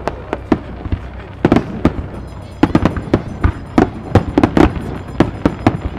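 Aerial firework shells from Shinshu Enka Kogyo bursting in a rapid-fire barrage: sharp bangs, a few at first, then many in quick irregular succession from about two and a half seconds in.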